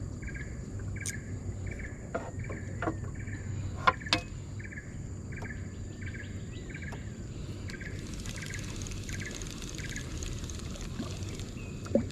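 Outdoor wildlife by a river: a short chirping call repeated about twice a second, over a steady high insect whine. A shrill insect buzz joins for a few seconds in the second half, and a few sharp clicks come in the first seconds.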